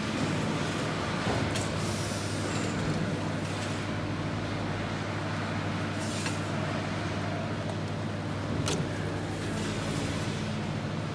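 Steady hum of a sausage filler's electro-hydraulic motor-pump, a three-phase motor driving a hydraulic piston, running as it feeds a multi-nozzle portioner. A few light clicks come in over it, about a second and a half in, around six seconds in and near nine seconds.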